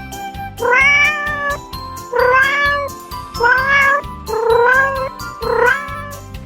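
Domestic cat meowing five times, each meow rising then holding, over background music.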